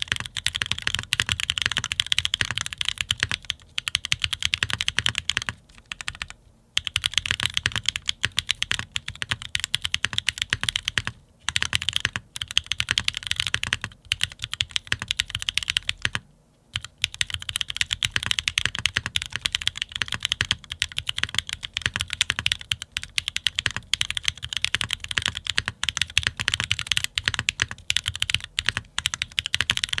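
Fast, continuous typing on a custom mechanical keyboard with lubed Durock Sunflower switches, an FR4 plate and GMK Deepwell ABS keycaps: a dense, steady run of keystroke clacks. The typing stops briefly about six, eleven and sixteen seconds in.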